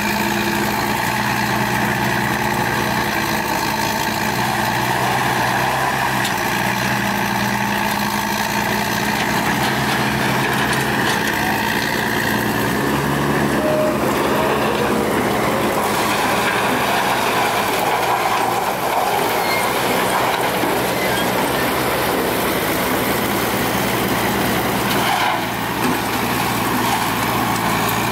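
Heavy diesel machinery running steadily: the engines of an excavator and a wood grinder working together, with the grinder chewing wood scraps. The tone changes a little under halfway through, and the running carries on unbroken.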